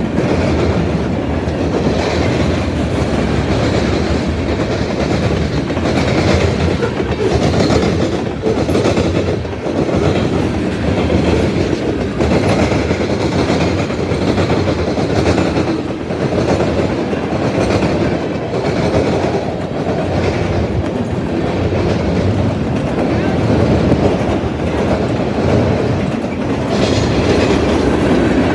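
Freight cars of a mixed freight train rolling past close by: a loud, steady rumble of steel wheels on rail, with repeated clickety-clack from the wheels.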